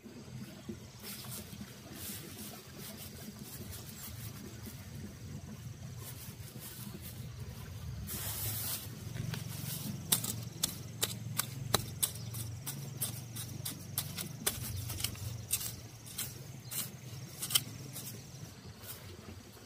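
Dry straw mulch rustling while a machete blade scrapes and chops into the soil to dig a planting hole. A short rush of noise comes at about eight seconds, and sharp taps and clicks of the blade come thickly in the second half.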